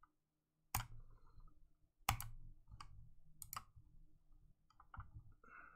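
A few sharp, separate clicks from the controls of a desktop computer, three louder ones about a second and a half apart with fainter ones between, then a short faint tone near the end.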